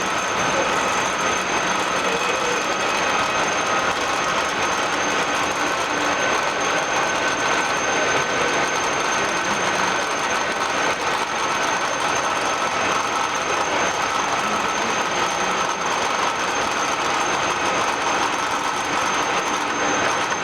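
An all-geared radial drilling machine running: a steady mechanical noise with constant high-pitched whines that hold unchanged throughout.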